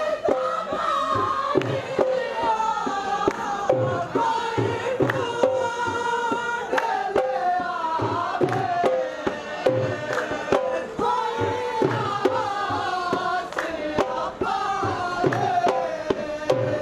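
Men singing a Punjabi folk song through a microphone and loudspeakers, with several voices together, over a steady percussive beat of about two strikes a second.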